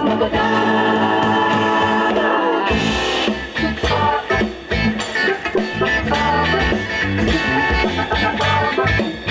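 Music: sustained chords at first, then a steady beat comes in about three seconds in.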